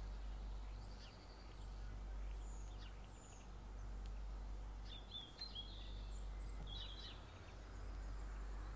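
Faint birds chirping in the background, short high calls and quick falling notes scattered throughout, over a steady low hum.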